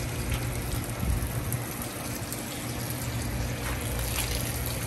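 Water spraying steadily from a garden hose nozzle onto loose soil and mulch, watering in a freshly planted shrub. A steady low hum sits underneath.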